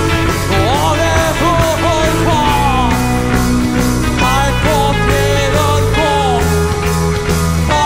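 Rock band playing live: a man singing over electric guitars, bass guitar and a drum kit.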